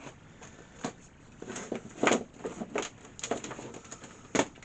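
Irregular clicks and knocks from handling laptop power adapters and pushing their plugs into a laptop's power socket, the loudest knock about two seconds in.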